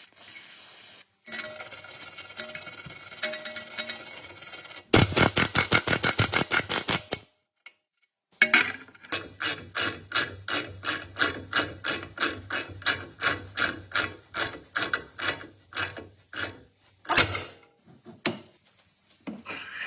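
Hand tools working metal on a car's front wheel assembly: a brief hazy scraping, then a quick run of rapid strokes, then a long run of even, repeated strokes about three or four a second, like hammering or filing.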